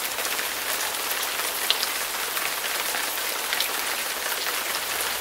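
Steady rain-like hiss with scattered faint ticks and drips.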